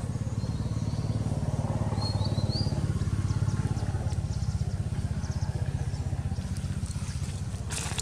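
A small engine running steadily, a low, rapidly pulsing hum that holds throughout. A bird chirps briefly about two seconds in.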